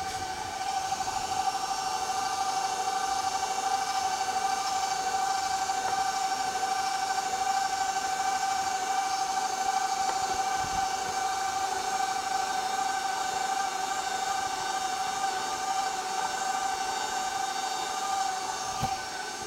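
Electric stand mixer running at a raised speed, its motor giving a steady high whine as it beats stiff cookie dough while flour is added. The whine grows louder about a second in and drops away near the end.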